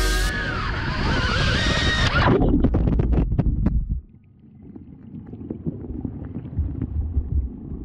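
iFlight Megabee drone's propellers whining, with wind rush on its onboard microphone. Then about two seconds of knocking and splashing as it crashes into the creek. From about four seconds in, a low, muffled underwater rumble of the creek with faint ticks, heard with the drone submerged.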